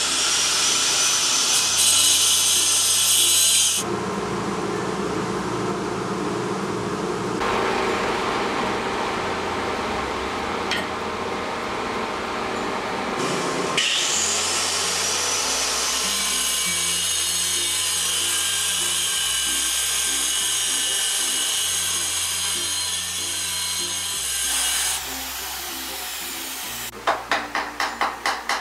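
Power tool cutting tile in several edited stretches, over background music with a steady stepped bass line. Near the end come quick, evenly spaced taps.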